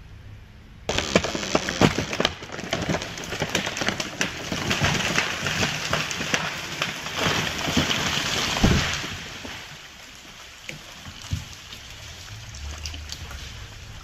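A large tree falling: a sudden cracking about a second in, then several seconds of crackling and crashing as the trunk tears and its branches break through the surrounding canopy, ending in a heavy thud as it hits the ground. Debris rustles and settles afterwards.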